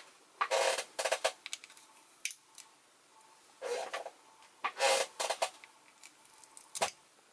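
Needle-nose pliers scraping and cracking off leftover pieces of an LED bulb's glass globe, in several short bursts with a sharp snap near the end.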